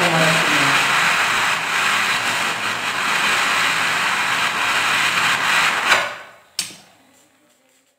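Jet flame of a homemade acetylene gas torch, its gas made from calcium carbide, hissing loudly and steadily under high pressure. The hiss stops about six seconds in as the flame goes out, followed by a single sharp click.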